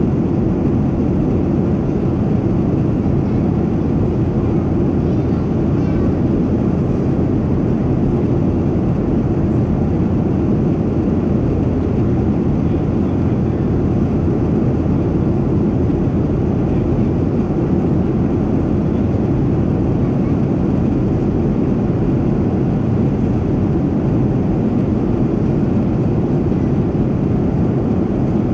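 Steady cabin noise of a Boeing 737-700 in flight: the CFM56-7B engines and the airflow past the fuselage, heard from inside the cabin at a window seat. The noise is even and deep, with no change in pitch or level.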